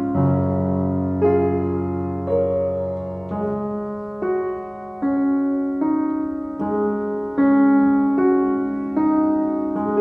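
Slow piano music, a new note or chord struck about once a second and each left to ring.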